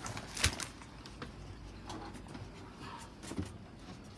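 Light handling noises from unpacked packaging: a sharp knock about half a second in, then a few faint scattered clicks and rustles.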